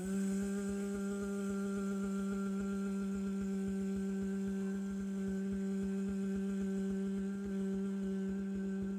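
A woman's voice humming one long, steady low note.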